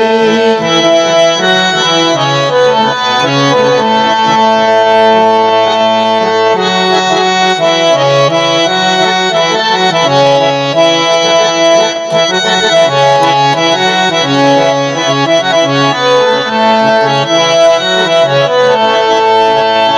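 Instrumental interlude of a Gojri folk song, with no singing: a free-reed instrument plays the melody in held notes that change every second or so.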